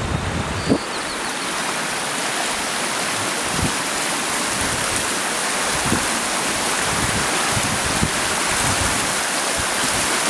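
Fast, high river rushing steadily, swollen with snowmelt runoff.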